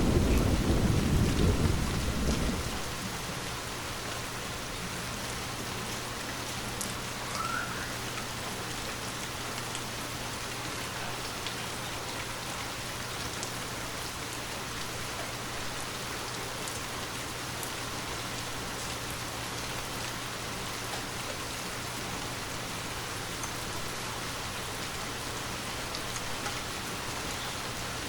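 Steady rain falling, with the tail of a deep thunder rumble fading away over the first couple of seconds.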